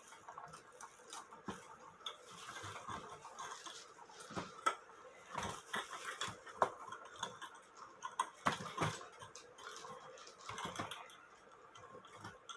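Irregular clicks, taps and knocks of a cuckoo clock movement and its chains being handled and repositioned on a wooden test stand, with a cluster of louder knocks in the middle.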